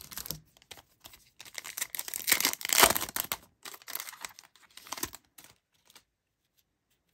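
Foil wrapper of a Panini Prizm baseball-card hanger pack being torn open by hand, crinkling and tearing in irregular crackles, loudest about two to three seconds in.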